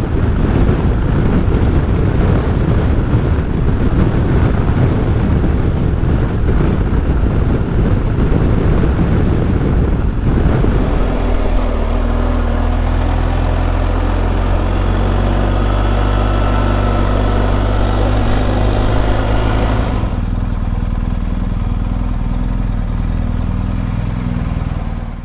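BMW R1250GS Adventure's boxer-twin engine running while riding, with heavy wind noise on the microphone. About 11 seconds in, the wind eases and a steady engine hum comes through more clearly, and the hiss drops further about 20 seconds in.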